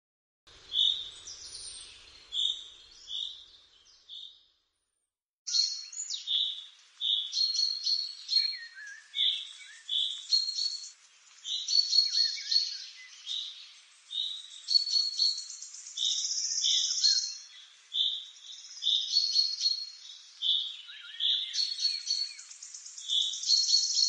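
Common chaffinch vocalizing: runs of short, repeated high notes, with a silent gap of about a second roughly four seconds in.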